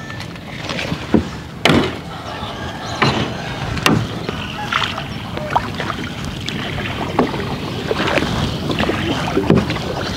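Small wooden boat being rowed: oars dipping and sloshing in the canal water, with a few sharp knocks, clearest about two seconds and four seconds in.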